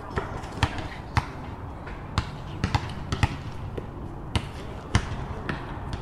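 Basketballs bouncing on a hard court: sharp bounces at an irregular pace, about eight in six seconds, over a steady background noise.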